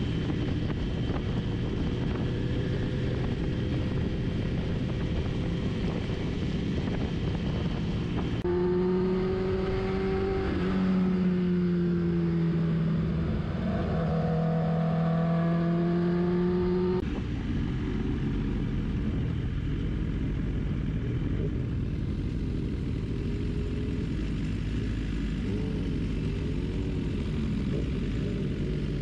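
Sport-bike engines and wind rush heard from an onboard camera while riding at road speed. From about 8 to 17 seconds in, a louder, steady engine drone holds, its pitch sagging and rising a little, then the wind-heavy riding sound returns.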